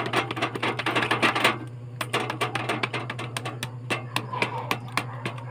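Rapid light tapping, several sharp taps a second, of a metal tool on the new friction lining of a sewing-machine clutch motor's clutch plate, hammering the freshly glued lining so it bonds tightly.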